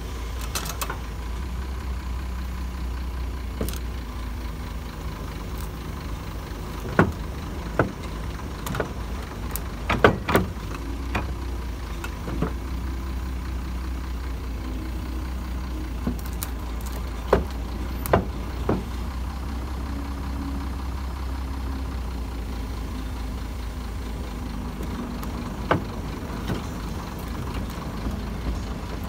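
Link-Belt 3400 excavator's diesel engine running steadily under load while the track drive turns the sprocket to walk the steel track chain back on. Irregular sharp metallic clanks, most of them in the middle stretch, come from the track links and shoes engaging the sprocket and dropping over the rollers.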